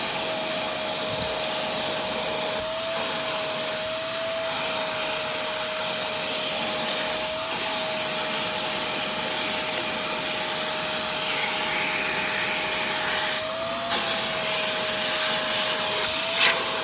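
Shark vacuum cleaner running steadily, sucking up dirt, with a high motor whine that rises slightly in pitch now and then. Near the end there is a brief loud burst of noise.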